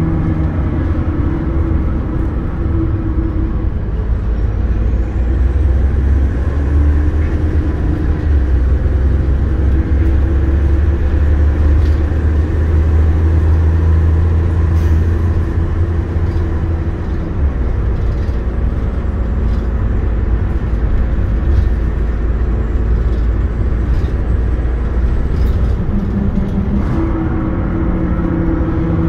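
Optare Versa single-deck bus heard from inside the saloon while driving: a steady low engine and road rumble with an engine note that shifts in pitch. The rumble is heavier from about 4 to 17 seconds in, and there are occasional light rattles.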